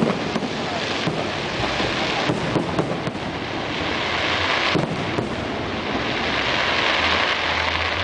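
Aerial fireworks shells bursting in quick succession, with a dense continuous crackle and a few sharper bangs standing out.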